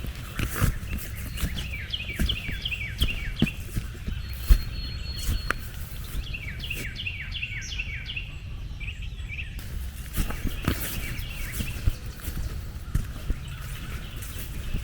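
A songbird singing two runs of quick, evenly spaced falling chirps, about five or six a second, over a steady low rumble with scattered clicks and soft thumps.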